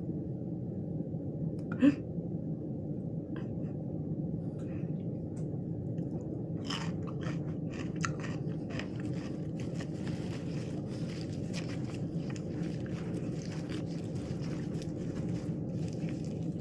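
Close-up chewing and biting of a crunchy lettuce wrap with fresh vegetables: scattered crunches that become dense and continuous about halfway through, over a steady low hum. A brief sharp sound about two seconds in is the loudest moment.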